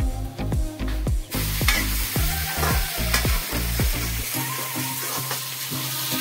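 Raw chicken pieces hitting hot oil in a steel kadai: a loud sizzle sets in suddenly about a second in and keeps going while a steel ladle stirs and scrapes them. Background music with a steady beat plays throughout.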